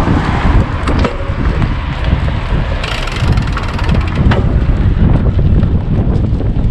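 Wind blowing across the microphone on a moving bicycle, a steady low rumble, with a brief hiss about three seconds in and two sharp knocks, about one second and four seconds in.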